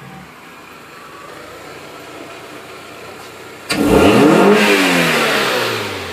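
Toyota Camry race car's engine revved hard once about three and a half seconds in, loud and sudden, its pitch shooting up and then falling back over about two seconds.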